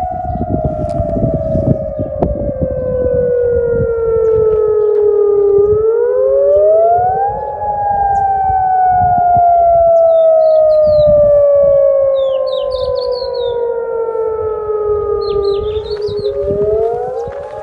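Civil-defence air-raid siren wailing as a missile-attack warning. Its steady tone slides slowly down, climbs quickly back up about six and a half seconds in, slides slowly down again, and starts climbing once more near the end.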